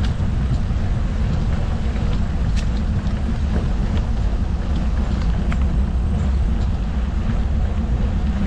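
Wind buffeting the microphone during a bike ride, a steady low rumble, with a few faint clicks.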